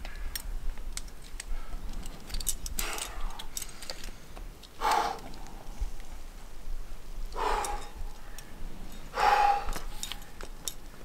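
A rock climber's hard, forceful exhalations, four of them about two seconds apart, some ending in a brief grunt, with light metallic clinking of the climbing rack (cams and carabiners on the harness).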